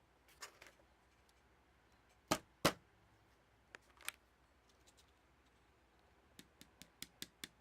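Scattered small clicks and taps: two sharp, louder clacks a little over two seconds in and a quick run of light clicks near the end. No locomotive sound is heard, because the track power is still off.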